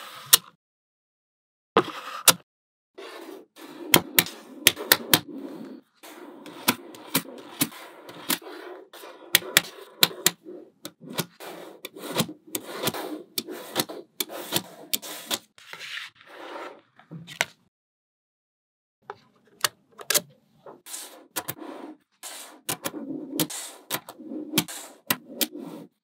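Small magnetic balls snapping together with sharp clicks, with the rubbing and scraping of balls rolling against each other and the work surface in between, as they are pressed into place by hand. The clicking stops twice, briefly near the start and for about a second about two-thirds of the way through.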